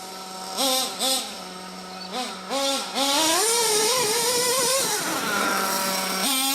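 RB K10 nitro engine of an Ofna Dominator RC monster truck idling steadily, blipped twice, then twice more, then revved up and held high for about two seconds before dropping back to idle and revving again near the end.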